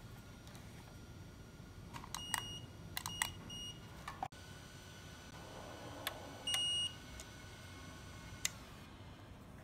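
Short electronic beeps from a UV LED spot light controller's buzzer: about four quick beeps a couple of seconds in, then one longer beep near seven seconds, with light clicks between them as its buttons are pressed.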